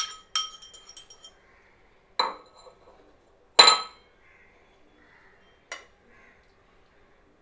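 A metal fork clinking against a ceramic bowl and a pan while beaten egg is scraped out and spread: about five separate clinks, some ringing briefly, the loudest about three and a half seconds in.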